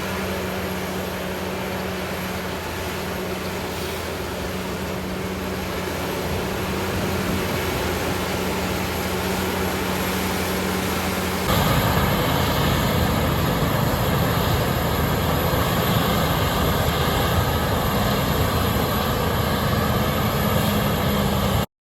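Corn silage harvesting machinery running steadily, an engine drone with a held hum. About halfway through it cuts abruptly to a louder, fuller running sound of the machinery closer up.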